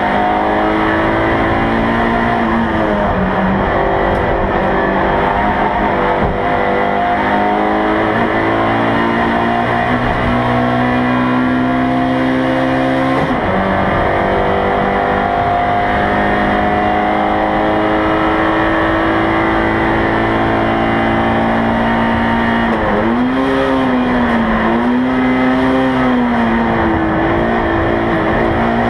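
Race car engine running hard at high revs, heard from inside its stripped, roll-caged cabin. The engine note holds fairly steady, drops suddenly once about halfway through, and wavers up and down for a few seconds near the end.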